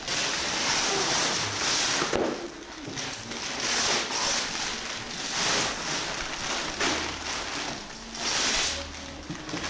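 Christmas wrapping paper being ripped and crumpled off a large cardboard box, in several bursts of tearing and crinkling.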